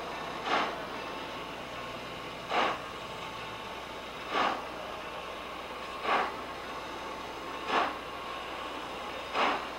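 Exhaust of the Chesapeake & Ohio 614, a 4-8-4 steam locomotive, chuffing slowly: six beats, each about two seconds apart at first and gradually coming closer together, over a steady hiss.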